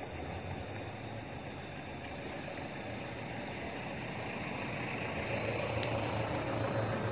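A motor vehicle's engine running steadily, growing louder over the last two seconds as it draws nearer, with a thin steady high tone behind it.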